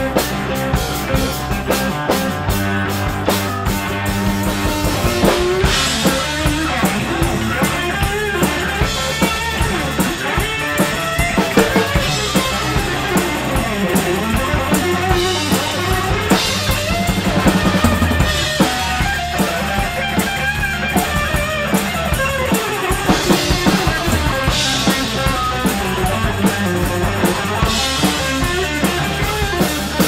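Live rock band playing: electric guitar, electric bass and drum kit, with a steady drum beat.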